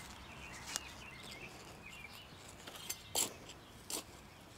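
Soft rustles and about three short taps as gloved hands push sedum cuttings into the soil and firm it around them, over faint bird chirps.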